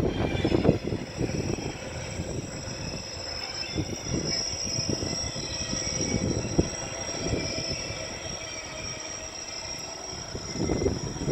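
West Midlands Railway Class 323 electric multiple units running slowly into the station, a steady train noise with a constant high-pitched whine. Bursts of wind hit the microphone at the start and near the end.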